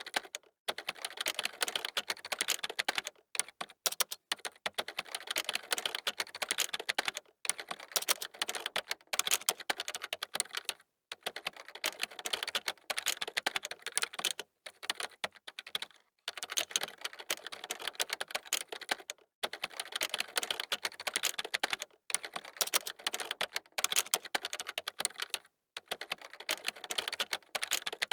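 Fast typing on a computer keyboard: quick runs of key clicks broken by brief pauses every second or two.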